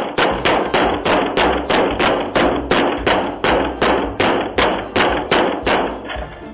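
Rapid, steady banging on a door, about four heavy blows a second, easing off near the end.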